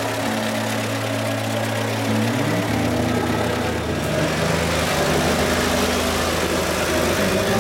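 Off-road vehicle engine idling steadily, its note shifting a couple of times with a brief rise about two seconds in.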